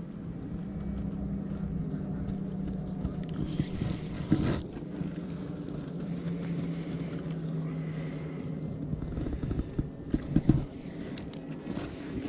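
A low, steady boat-engine drone over wind on the microphone, fading out and returning a little lower in pitch, with a few sharp knocks of gear being handled about four seconds and ten seconds in.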